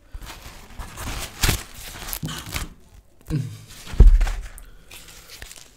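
A dried-out rumali roti, stiff and papery, rustling and crackling as it is handled and crumpled, with a dull thump about four seconds in.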